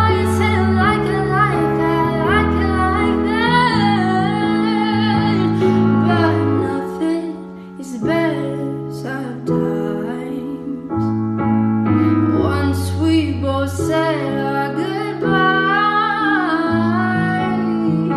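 Background song: a woman singing over piano or keyboard chords, with a brief quieter pause about halfway through.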